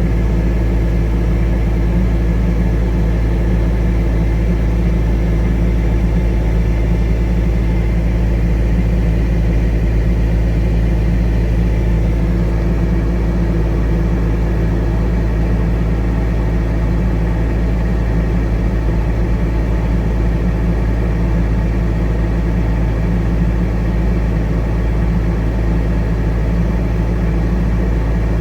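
Large diesel engine running steadily at a constant speed, a loud, even drone with no revving or changes.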